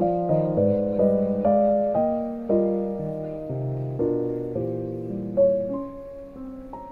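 Background music: piano chords played at a slow, gentle pace, each struck and left to fade.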